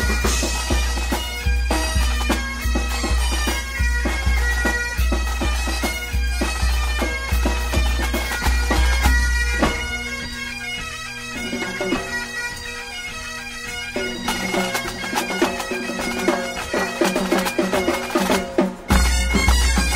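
Breton bagad (pipe band) music: bagpipes playing a lively dance tune over a steady drone, driven by a regular low drum beat. About halfway through the drum beat drops out and the pipes carry on alone, then the beat comes back abruptly near the end.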